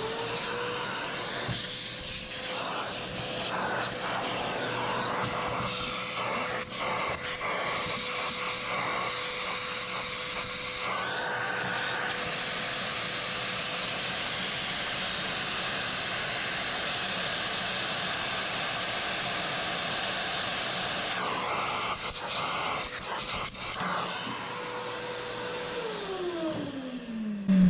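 Shop vac running with its hose nozzle sucking leftover coffee grounds out of the burr chamber of an espresso grinder: a steady motor whine over rushing air, with a few sharp clicks. Near the end the vacuum is switched off and its whine falls in pitch as the motor winds down.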